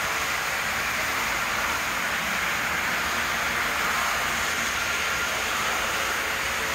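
Model trains running on a floor layout: a steady whirring hiss of several powered diesel locomotives and their freight cars rolling around sectional track.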